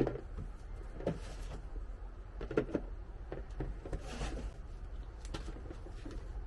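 Unboxing handling: a few short knocks and clacks of plastic planter parts and packaging being moved, with a brief rustle of packing material about four seconds in, over a low steady hum.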